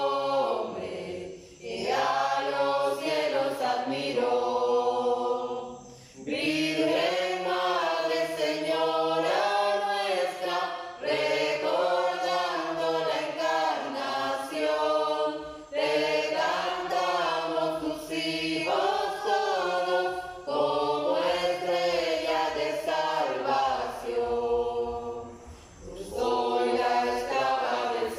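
Small group of men and women singing a Spanish-language hymn to the Virgin Mary together, in long phrases with short breaks between them.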